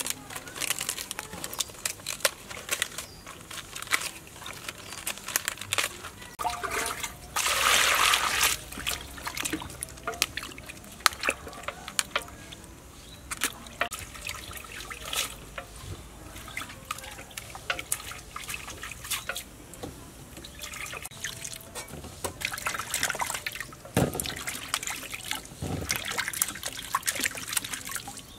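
Hands washing vegetables in a steel basin of water: splashing, trickling and dripping as leaves are handled. About eight seconds in comes a louder rush of water lasting a second or so, and near the end there are two sharp knocks.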